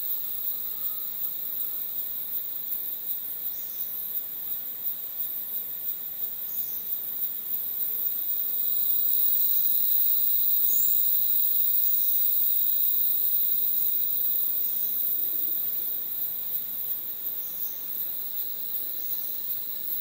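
A chorus of Bornean rainforest insects: a high-pitched, steady trilling with a regular pulse. It swells louder for several seconds in the middle, then falls back.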